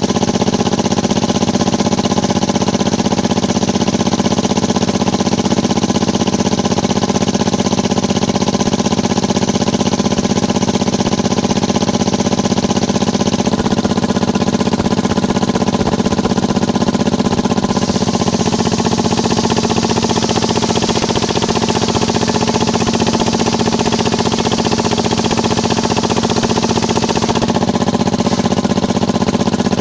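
Mini circular sawmill running steadily with a constant motor hum, the blade's hiss growing brighter from about the middle as waru wood is ripped into battens, then easing near the end.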